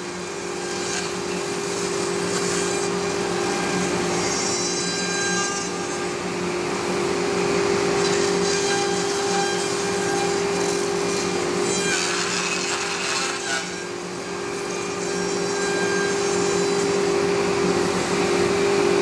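Thermwood Cut Ready CNC router's spindle and bit cutting through a wood sheet panel: a steady hum with the rough noise of the cut, rising and falling a little as the head moves along the cut.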